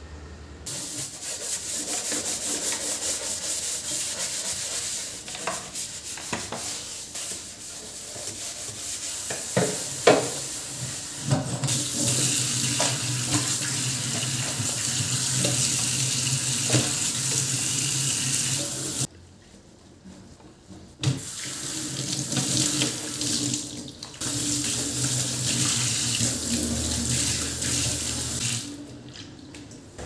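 Tap water running and splashing into a stainless steel kitchen sink, with a sharp knock about a third of the way in. The flow stops for about two seconds past the middle, runs again, and fades out near the end.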